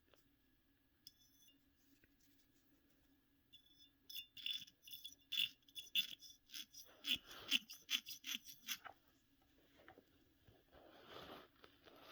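A piece of palladium fused to a former tin muffin pan being tapped, each strike ringing like a bell with a high metallic tone. A couple of single taps come first, then about four seconds in a quick run of taps lasting some four seconds.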